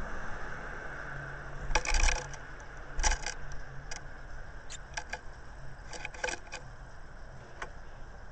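A Japanese tit's claws scrabbling and tapping on a wooden nest box as it lands and clings at the entrance hole: two bursts of sharp scrapes about two and three seconds in, then scattered single clicks.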